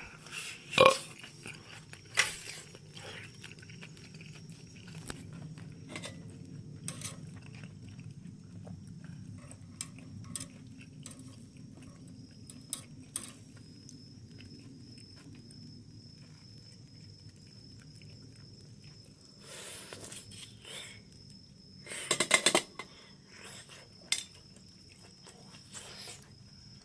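A person chewing and eating food with small wet mouth clicks, with a couple of louder short bursts about a second in and again around twenty-two seconds.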